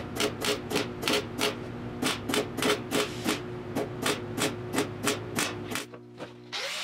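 Welder stitch-welding a sheet-metal patch onto a car body in short, evenly spaced bursts of arc crackle, about three a second, over a steady hum; the bursts stop shortly before six seconds in. Near the end an angle grinder starts up with a wavering whine.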